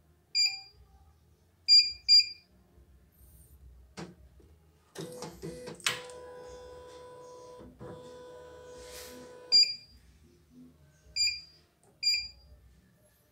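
CNY E900 computerised embroidery machine giving short high key-press beeps as its control panel is operated, six in all. In the middle, after a click, a motor in the machine runs steadily for about four and a half seconds and stops with a beep.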